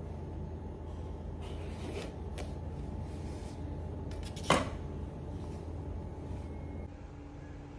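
A kitchen knife slicing through a whole papaya on a paper-covered counter, with faint scraping strokes, then a single sharp knock about four and a half seconds in, over a steady low hum.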